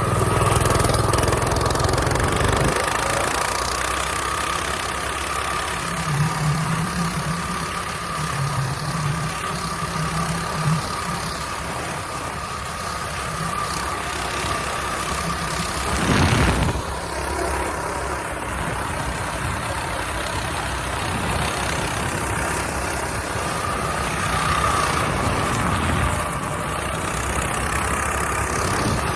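Mini bike's small engine running steadily. About sixteen seconds in there is a brief louder disturbance.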